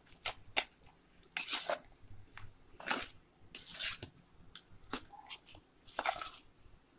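Hand squelching and mashing soft cooked rice with thick curd in a steel bowl: an irregular run of short wet smacks and clicks with a few longer squishes.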